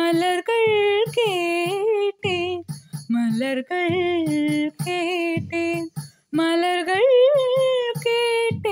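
Young woman singing a wordless, ornamented melody in a Carnatic-style film song, her pitch sliding and bending through long held phrases with short breath breaks, over electronic keyboard accompaniment.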